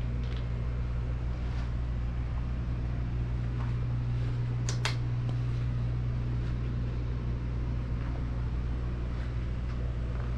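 A steady low mechanical hum, with two sharp clicks close together about halfway through.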